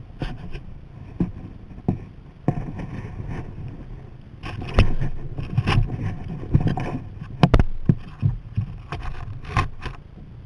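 Irregular knocks, clatters and scrapes of a kayak paddle against the kayak's deck close to the microphone, with water splashing from the paddle strokes. The knocks come thickest in the middle stretch.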